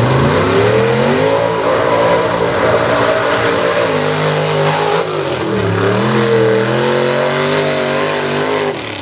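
Lifted Chevrolet mud-bog pickup's engine revving hard at high rpm as it launches across a dirt track. The pitch climbs over the first second and a half, dips briefly about five seconds in, then climbs again before dropping away near the end.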